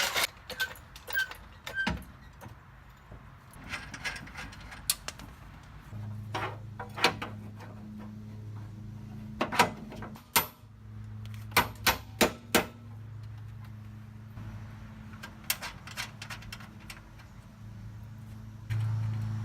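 Metal clinks and knocks of bolts, washers and tools being handled while subframe hardware is fitted, scattered irregularly throughout. A steady low hum starts about six seconds in and gets louder near the end.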